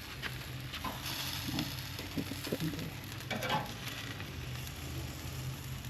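Beef slider patties sizzling on a charcoal grill: a steady crackling hiss, with a few short clicks and knocks.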